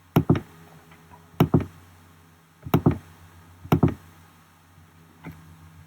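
Sharp clicks of someone working a computer's keys or mouse, coming in four quick pairs about a second apart.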